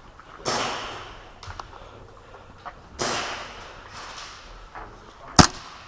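Two rushes of noise, about half a second and three seconds in, each fading over about a second, and a single sharp crack about five seconds in, the loudest sound.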